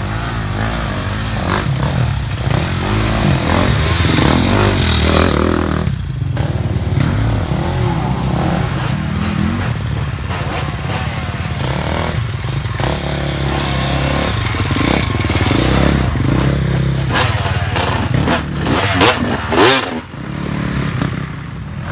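Dirt bike engines revving up and down as riders pick their way over a rock bed. Near the end there are sharp knocks and scrapes.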